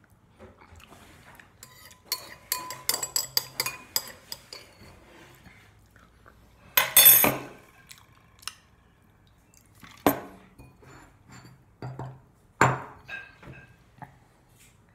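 Metal spoon clinking and scraping against a ceramic bowl in a quick run of ringing clinks, then a short loud splash as liquid is poured from a drink can into the bowl. Two sharp knocks follow, a few seconds apart.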